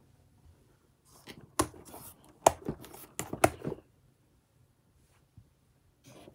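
A cluster of sharp clicks with rustling between about one and four seconds in, then a few more clicks near the end: hands pressing the arcade-style push buttons on a homemade cardboard control panel.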